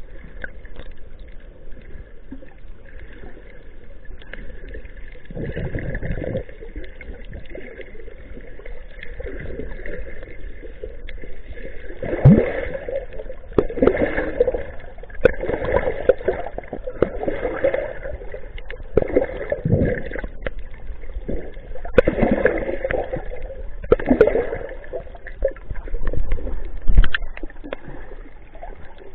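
Water sloshing and gurgling, heard muffled through an underwater camera, with repeated swelling surges every second or two from about five seconds in.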